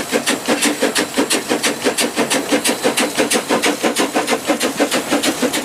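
Train chugging: a fast, even run of rhythmic beats.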